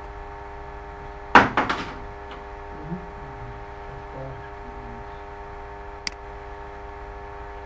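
Steady electrical mains hum, with a quick cluster of several knocks about a second and a half in and a single sharp mouse click about six seconds in.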